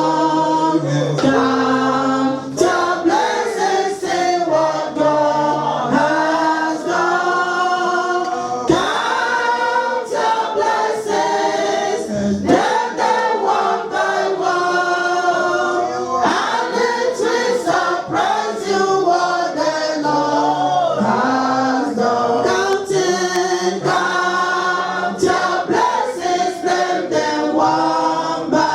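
Choir singing a worship song in several voice parts.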